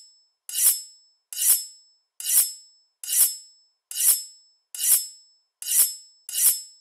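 A looped outro sound effect: a short, high, hissing swell with a faint ringing tone, repeated evenly about once every 0.85 s. Each one rises quickly and fades away.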